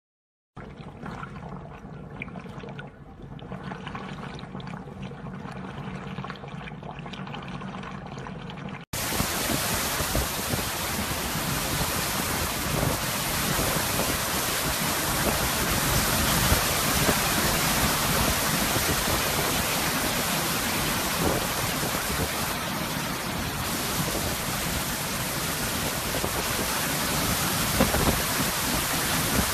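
Hurricane wind and storm-surge water rushing over flooded ground: a loud, dense, even roar. It begins with a sudden cut about nine seconds in. Before that there is a much quieter stretch with a low steady hum.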